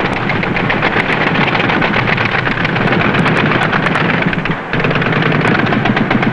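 Rapid machine-gun fire, a dense unbroken stream of shots with a brief break about four and a half seconds in.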